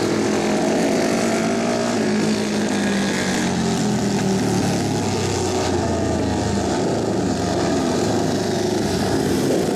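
Several flat-track racing motorcycle engines running at once, their pitch rising and falling as the bikes accelerate and pass.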